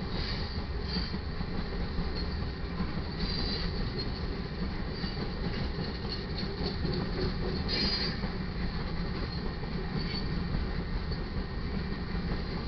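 Freight cars of a manifest train rolling past: a steady rumble of steel wheels on rail, with short high-pitched wheel squeals every few seconds.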